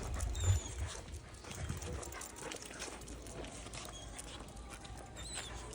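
A dog moving about, with scattered light taps and knocks and a few faint high chirps.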